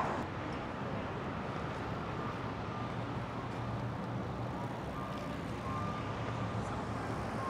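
City street traffic noise, with a vehicle engine running steadily as a low hum under the general street noise, and a few faint short high tones in the middle.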